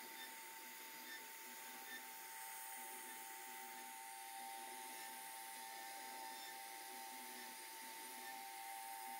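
CNC router spindle running steadily with a constant whine as its bit carves a relief pattern into a wooden panel.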